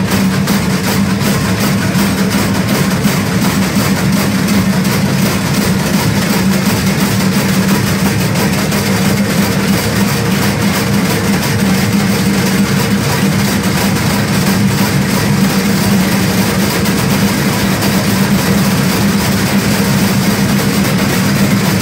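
A group of Wolfauslassen bell-ringers swinging the large sheet-metal bells strapped to their fronts in unison, making a loud, continuous clanging din.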